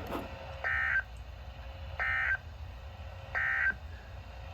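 EAS end-of-message on a NOAA Weather Radio broadcast: three short SAME digital data bursts, buzzy two-tone warbles about a second and a half apart, marking the end of the warning.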